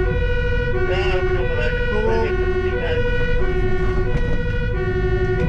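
A fire engine's two-tone siren, alternating between a low and a high note about every two-thirds of a second, sounding on a priority-1 emergency run. It is heard from inside the cab over the steady rumble of the engine and road.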